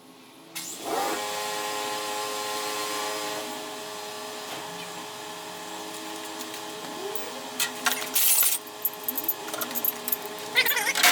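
Portable generator engine starting about half a second in, rising quickly in pitch and then running with a steady hum. In the second half, loud sharp crackling bursts come in, the loudest near the end.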